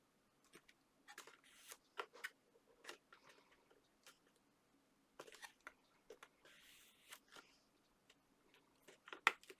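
Card stock being handled and pressed into place: soft scattered taps, clicks and brief rustles, with a sharper click near the end.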